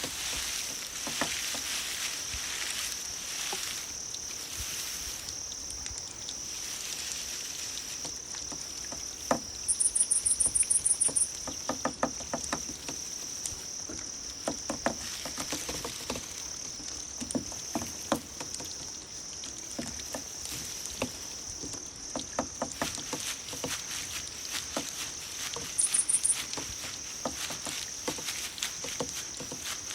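A chorus of grass insects such as crickets, trilling steadily at a high pitch. A louder, higher pulsed trill cuts in once about ten seconds in for a second and a half, and briefly again later. Irregular soft clicks and patter run underneath.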